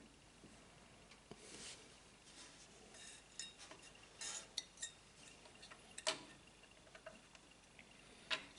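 Faint, irregular clicks, taps and short scrapes of small hard parts being handled, as a CPU cooler and its mounting hardware are picked up and set in place; the sharpest click comes about six seconds in.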